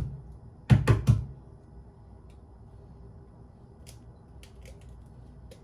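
A brief vocal sound just under a second in, then faint scattered clicks and scrapes of hands working food over a plastic bowl.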